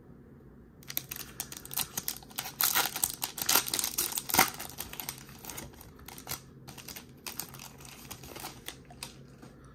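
Foil wrapper of a Topps 2022 Series 2 baseball card pack crinkling and crackling as it is torn open and handled by hand. It starts about a second in, is loudest in the middle and thins out toward the end.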